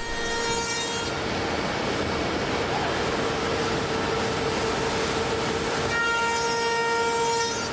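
Busellato JET Optima CNC machining center cutting wooden door stiles and rails: the router spindle's steady high whine under the loud rushing noise of the cutter in the wood. The whine stands out more clearly near the start and again from about six seconds in, when the cutting noise eases.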